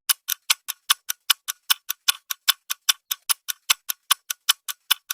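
Fast, evenly spaced clock-like ticking, about five ticks a second, with dead silence between the ticks: a ticking sound effect rather than the sound of the work.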